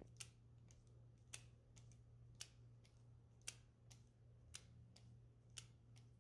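Faint metallic clicks, about one a second with lighter ones between, as the cocking piece of a Steyr-Mannlicher M95 bolt is turned by hand and unscrewed from the firing pin. A low steady hum runs underneath.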